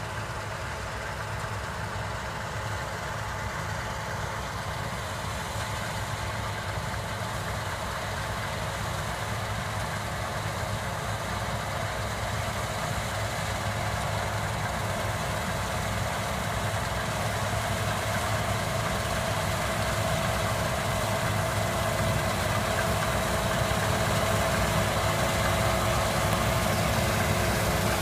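Engine of heavy farm machinery at wheat harvest running steadily, growing gradually louder.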